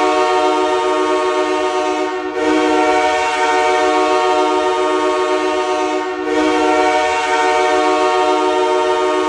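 Ice hockey arena goal horn blowing, signalling a goal scored. It sounds in long, steady blasts with two short breaks, about two seconds in and about six seconds in.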